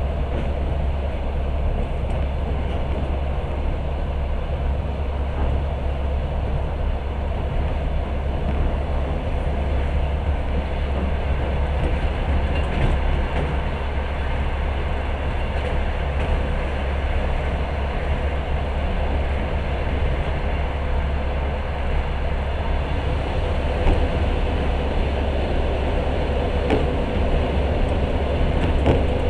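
Long-distance passenger train running steadily on the rails, heard from inside the carriage: a continuous low rumble of wheels and car body with a few faint clicks.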